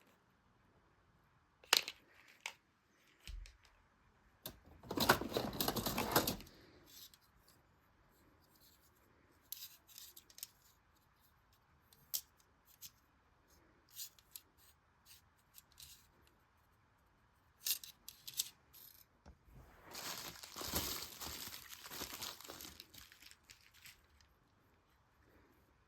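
Packaging being torn and crinkled by hand, in two longer rustling stretches about five seconds in and again from about twenty seconds, with scattered clicks and taps in between.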